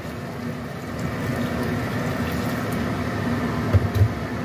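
Water poured into a hot wok of stir-fried vegetables, sizzling and bubbling with a steady hiss. Two dull knocks come close together near the end.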